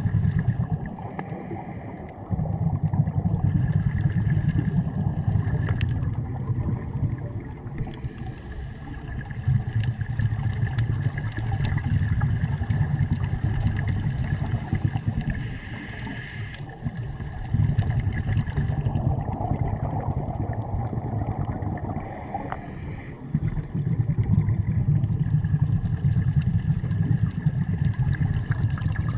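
Scuba diver breathing through a regulator, heard underwater. Four short hissing inhalations come about seven seconds apart, and between them the exhaled bubbles make a low, rumbling bubbling.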